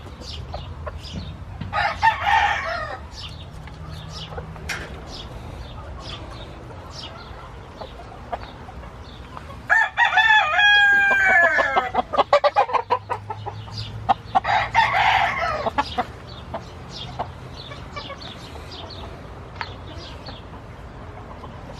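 Roosters crowing: one loud crow about halfway through, with shorter calls near the start and again about three-quarters of the way through, amid scattered chicken clucking.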